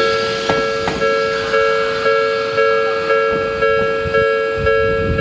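Japanese railway level-crossing warning bell ringing its two-note electronic tone about twice a second. Train noise runs underneath, with a pair of sharp wheel clacks over rail joints in the first second.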